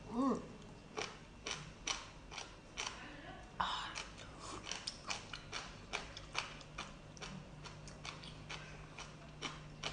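Wet, sharp clicks and squelches, irregular at about one or two a second, as a raw sea anemone is sucked at and then pulled apart by hand, with one wetter, noisier squelch about four seconds in. A brief hum of the eater's voice comes just at the start.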